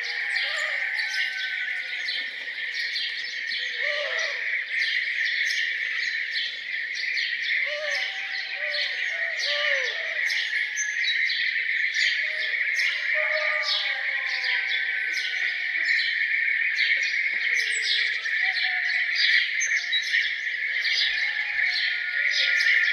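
Dawn chorus of many songbirds: dense, rapid chirping and twittering over a steady high trill, with lower short arching calls mixed in every few seconds.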